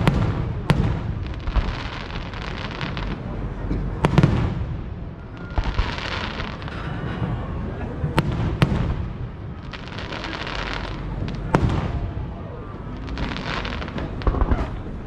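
Fireworks display: sharp bangs of bursting aerial shells every few seconds, some in quick pairs, each bang followed by about a second of crackling.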